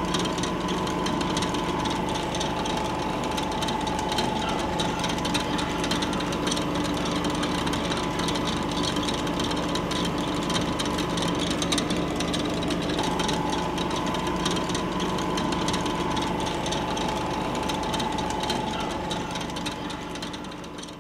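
Film projector running: a fast, steady mechanical clatter with a steady hum underneath, fading out near the end.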